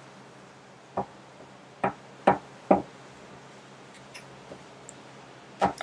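Light taps and clicks of hands handling tarot cards on a cloth-covered table: about five short taps, four in the first three seconds and one near the end.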